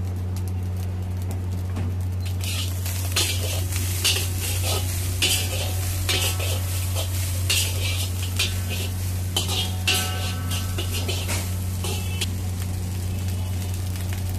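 Metal spatula scraping and clanking against a large iron wok as rice is stir-fried, with frying sizzle and a steady low hum underneath. About two seconds in, the scraping strokes start and come in quick irregular runs, some with a brief metallic ring.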